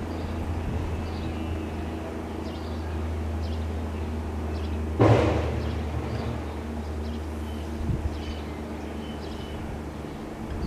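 Federal Signal STL-10 outdoor warning siren winding down as a steady low drone, its rotor still coasting long after the blast; the uploader credits the very long coast-down to clean bearings. A sudden loud burst of noise comes about five seconds in and fades over about a second.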